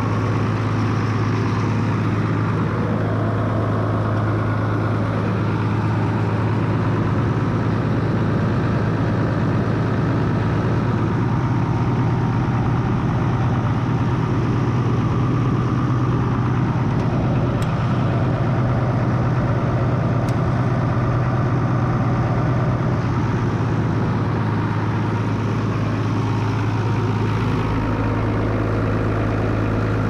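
Ford 8240 tractor's diesel engine running at a steady idle.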